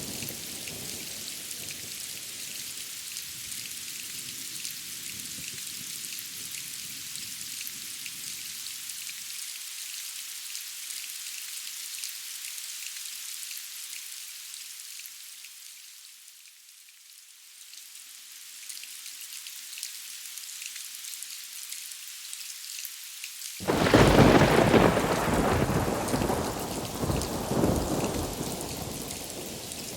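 Steady rain hissing during a thunderstorm, with faint distant thunder rumbling in the first several seconds. The rain briefly softens around the middle. About 24 seconds in, a sudden loud thunderclap breaks out and rolls on for about five seconds before fading.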